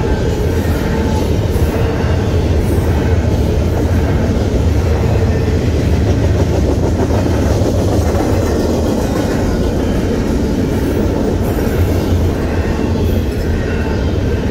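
Union Pacific intermodal freight train's double-stack container cars rolling past at speed: a steady, loud low rumble with the rattle and clatter of wheels on the rails.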